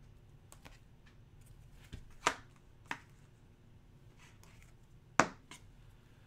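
A few short, sharp plastic clicks and taps as hard plastic trading-card holders are handled, set down and picked up, the loudest about two seconds in and again about five seconds in.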